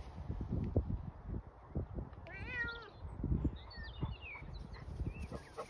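Domestic cat giving one drawn-out meow a little over two seconds in, rising and then falling in pitch, against scattered low thumps and rustling.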